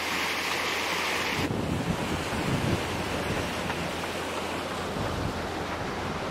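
Water rushing and hissing along a sailboat's hull as it moves under way. About a second and a half in this switches to wind buffeting the microphone over water splashing at the bow.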